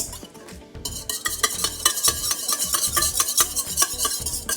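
Water, oil and egg being stirred together in a mixing bowl: a utensil scraping and clicking against the bowl in quick, repeated strokes, picking up about a second in.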